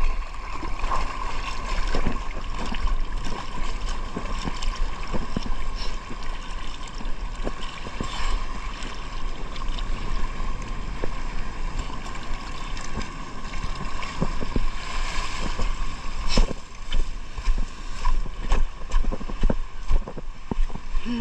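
Water sloshing and gurgling with wind rumbling on the microphone, a steady thin hum throughout and many short knocks scattered through it.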